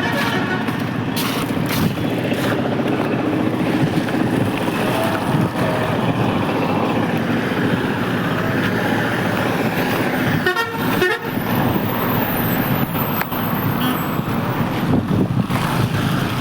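Heavy rain pouring down in a storm, a steady loud wash of noise.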